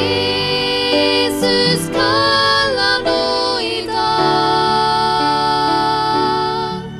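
Two women's voices singing a slow song together, accompanied by an upright piano. The sung notes are held and glide between pitches over sustained piano chords.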